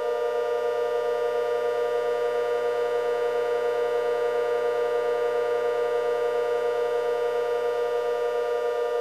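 Outdoor warning siren holding a steady tone with a fast flutter, neither rising nor falling.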